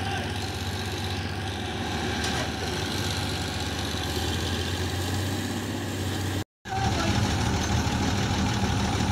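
Heavy diesel farm engine running steadily at idle, a low even hum. It breaks off briefly about six and a half seconds in and comes back a little louder.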